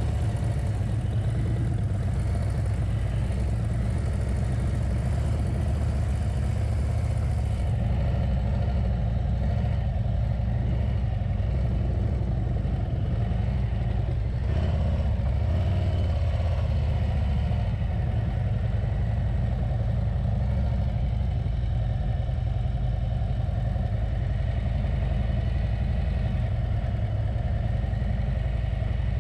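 Harley-Davidson V-twin motorcycle engine running steadily, a deep low-pitched drone.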